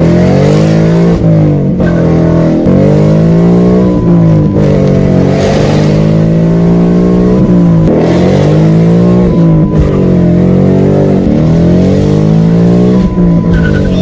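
2018 Mustang GT's 5.0-litre V8 running loud through an X-pipe and active exhaust under hard acceleration, heard from inside the cabin. The revs climb and drop back several times as it shifts through the gears.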